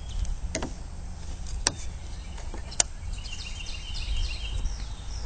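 Three small sharp clicks about a second apart as kit parts are handled, over a steady low rumble. From about halfway through, birds chirp repeatedly in the background.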